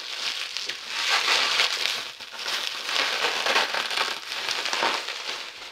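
Plastic bubble wrap being pulled off and unwrapped by hand, crinkling and rustling in repeated bursts.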